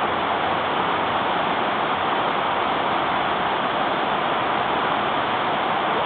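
Steady rushing of a flooded, swollen river running fast over rocks and around a vehicle mid-crossing.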